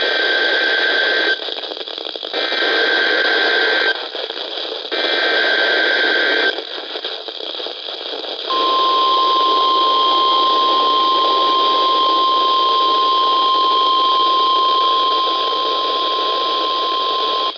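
NOAA Weather Radio emergency alert signal heard through heavy radio static from a weak, distant station during a Required Weekly Test. Three short S.A.M.E. header data bursts, each about a second and a half with brief gaps between, are followed about eight seconds in by the steady single-pitch 1050 Hz warning alarm tone, which holds to the end.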